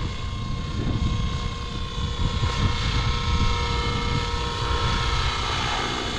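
Align T-Rex 650X electric RC helicopter in flight: a steady motor and gear whine over rotor noise, shifting slightly in pitch about halfway through.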